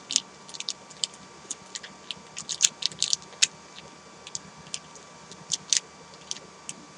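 Nature Valley granola bar's plastic wrapper crinkling and crackling as it is torn open by hand: a run of irregular sharp crackles.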